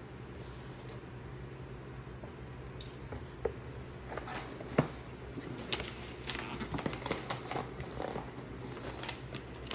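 Hands handling objects: scattered light clicks, taps and rustling, busier in the second half, over a steady low hum.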